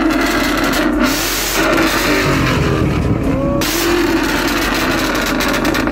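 Ford Mustang GT's V8 being revved hard again and again, its pitch sweeping up with each blip, with crackling and popping from the exhaust as it spits flames.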